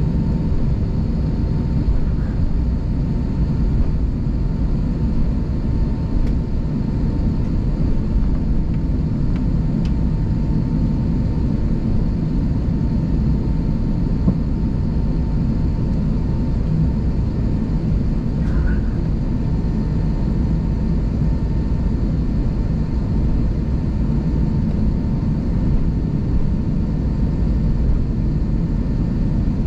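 Airbus A320 cabin noise while taxiing: a steady low rumble from the idling engines and airframe, with a thin steady whine above it.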